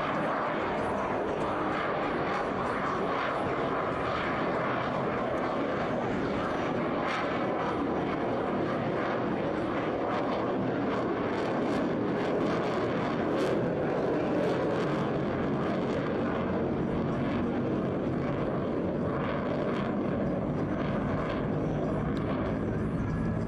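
F-22 Raptor's twin F119 turbofan engines heard as steady jet noise, a broad rushing sound from the aircraft in flight, swelling a little about halfway through.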